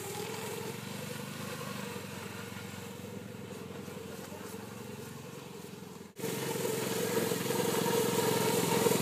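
Engine of a small Polaris youth snowmobile running steadily, fairly faint at first. After a sudden break about six seconds in, it is much louder and close.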